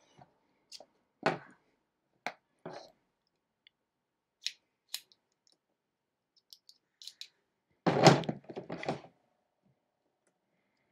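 Mechanical camera cable releases being handled: scattered clicks and ticks as their plungers are pushed in to extend the needles, with a louder cluster of knocks near the end.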